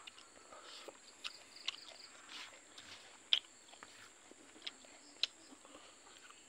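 Close mouth sounds of a person chewing cooked silkworms and rice: soft wet chewing with sharp lip-smacking clicks about once a second. A steady high insect drone runs behind.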